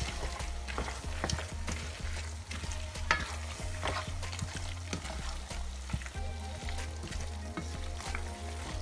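Wooden spatula stirring vegetables through a thick tomato stew in a pan, scraping and knocking against the pan in irregular strokes while the stew sizzles.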